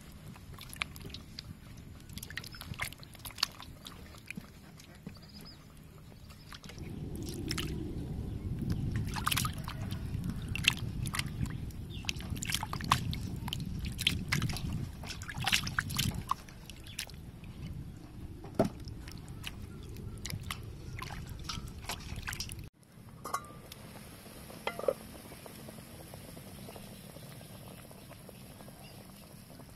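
Hands sloshing and splashing peeled papaya, potato and carrot around in a metal basin of water, with drips and trickles, loudest from about 7 to 16 seconds in. After a sudden cut near the end, a pot of water boils steadily.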